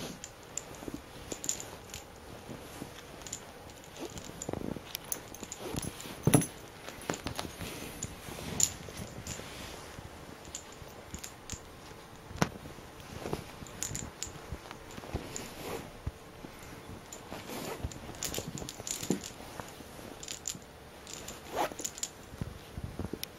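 Light jingling, rattling and irregular clicks of a wand cat toy swung around on its cord and batted at by a cat, with soft knocks on the carpet. One louder knock comes about six seconds in.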